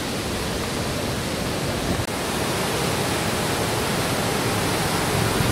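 Ravana Falls waterfall rushing steadily: a constant, even wash of falling water that breaks off for an instant about two seconds in.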